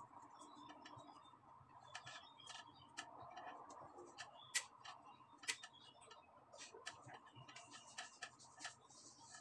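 Near silence: a faint room hum with scattered, irregular small clicks and taps, and a soft hiss near the end.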